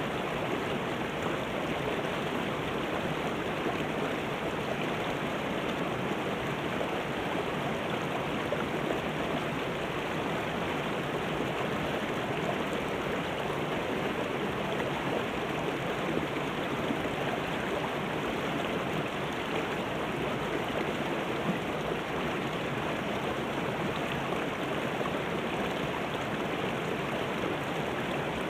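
Shallow mountain river running over rocks and boulders: a steady rush and splash of water over small cascades.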